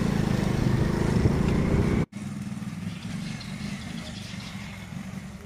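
Small motorcycle engine running: loud and rough for the first two seconds, then, after a cut, quieter and steady.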